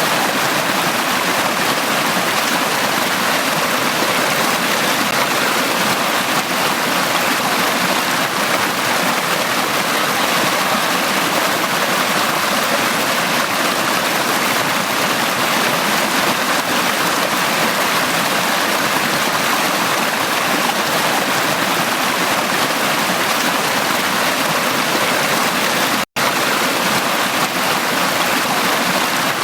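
Valley stream flowing steadily, a constant rushing of water. Near the end the sound drops out for a split second, then resumes unchanged.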